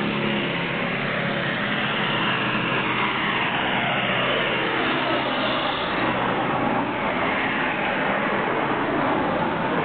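Motor vehicles passing on the road: engines running under a steady traffic din, with engine notes that fall in pitch twice, from about two seconds in and again from about six seconds in.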